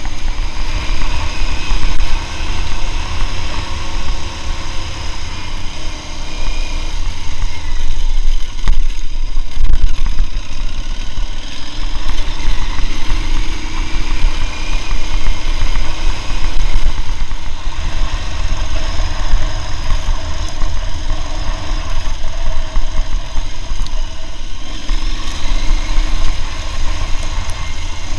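Aprilia Tuareg 660's parallel-twin engine running at low revs along a dirt lane, its pitch rising and falling with the throttle, over a heavy low rumble.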